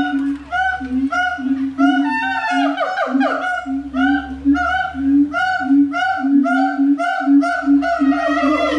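Gibbons calling: a rapid, rhythmic run of loud whooping notes, about two to three a second. Sliding, rising notes from another animal join in around two seconds in and again near the end.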